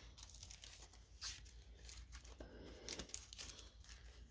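Pokémon trading cards and foil booster-pack wrappers being handled: several faint, short rustles and scrapes.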